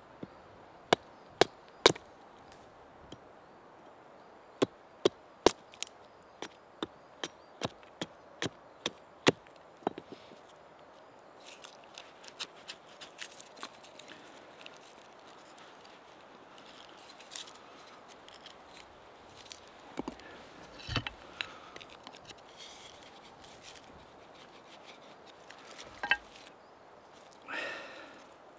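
Hatchet blows on a short piece of fresh wood set on a chopping stump: a string of sharp knocks for about the first ten seconds. After that comes the softer, irregular scraping of a knife whittling the wood into a bow-drill handhold.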